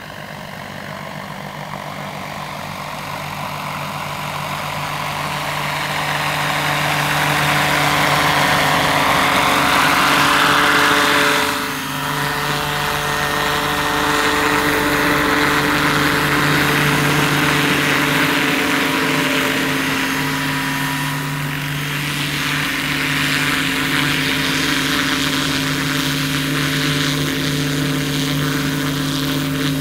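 Radio-controlled scale model AS-350 Ecureuil helicopter flying in, growing louder for about ten seconds as it approaches, then hovering low over the grass with its rotor running steadily as it comes in to land.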